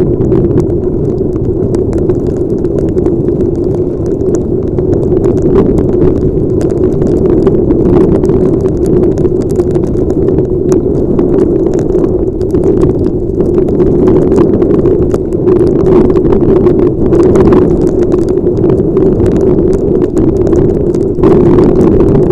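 Riding noise picked up by a helmet camera's microphone in heavy rain: a loud, steady rush of wind and vehicle noise with a constant low hum, and many small ticks from raindrops striking the helmet. It grows a little louder and brighter near the end.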